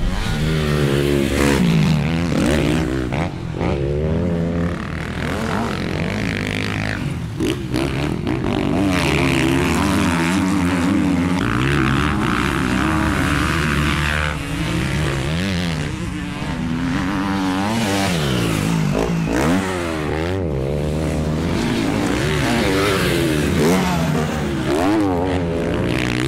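Dirt bike engines revving, the pitch climbing and dropping again and again as in a race or chase, with the engine sound of several bikes overlapping.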